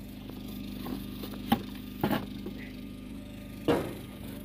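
An engine runs steadily with a low, even hum. A few sharp clicks and knocks come over it, the loudest near the end.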